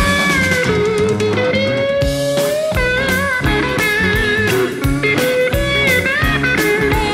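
Live electric blues band: a lead electric guitar plays sustained notes bent up and down over a drum kit and band backing.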